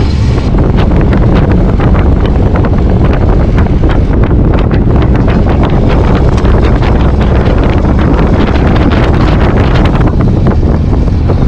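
Loud wind buffeting the microphone, with rapid crackling gusts, from riding in the open back of a moving pickup truck.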